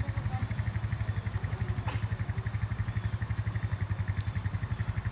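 A vehicle's engine running steadily, with a fast, even pulse.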